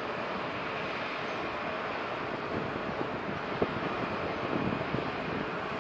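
Steady outdoor background noise, an even rumbling hiss with no clear engine tone, and one brief knock about three and a half seconds in.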